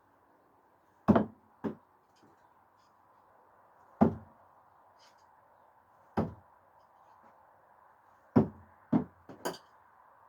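Screwdrivers thrown underarm without spin hitting a target, with a sharp knock about every two seconds, four main hits in all. Some hits are followed closely by a lighter knock, and near the end comes a brighter, ringing metallic clatter.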